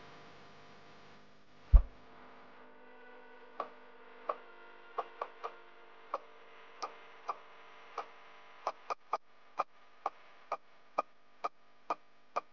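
A single loud thump, then a run of sharp, ringing percussive clicks, slow and uneven at first and coming faster from about two-thirds of the way in, over a faint steady hum.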